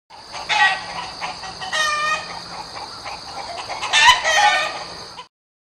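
A rooster crowing three times, each crow a pitched call with a bend in it, over a steady high-pitched whine. The sound cuts off abruptly about five seconds in.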